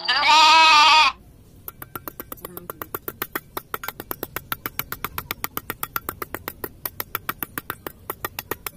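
A short bleat in the first second, then a fast, even run of small scraping clicks, about eight a second, as a small mason's trowel is scraped over a sand floor.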